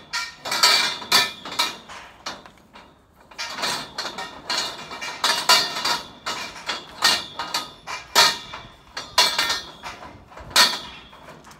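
Steel scaffolding being taken apart: an irregular string of sharp metallic knocks and clanks, about one or two a second, each ringing briefly, as wedge joints are struck with a hammer and steel parts knock together.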